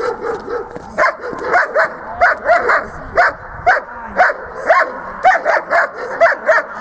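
A dog barking in a fast string of short, high yaps, about two or three a second.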